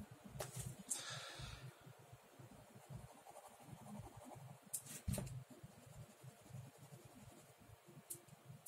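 Pen scratching on sketchbook paper in short shading strokes, faint, with a few light ticks of the pen on the page.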